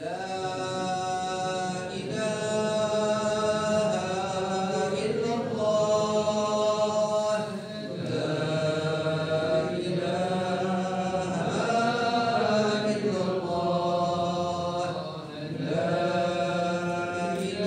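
A man's solo voice chanting the Islamic call to prayer (adhan) in the old Annaba style, set in the malouf mode tab' sika dhil. Each phrase is drawn out in long melismas, with short breaths about two, eight and fifteen seconds in.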